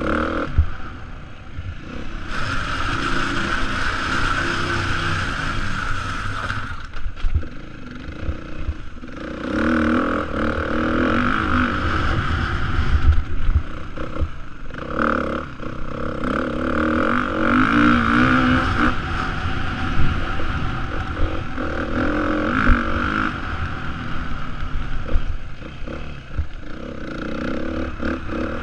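2017 Beta 430 RR-S single-cylinder four-stroke dirt bike engine under hard riding, revving up in repeated bursts of acceleration and backing off between them. Occasional sharp knocks come through over the rough ground.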